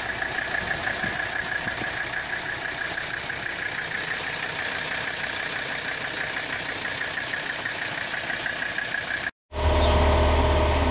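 An engine running at a steady speed, with a fast rhythmic pulse, stops abruptly near the end. After a moment of silence a steady low hum takes over.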